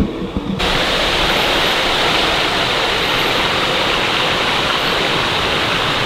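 Steady rush of a waterfall's falling water, cutting in suddenly about half a second in.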